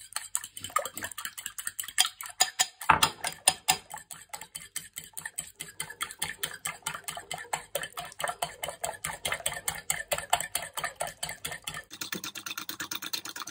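Raw egg being beaten with a metal fork in a ceramic bowl: fast, even clicking of the fork against the bowl, about six strokes a second.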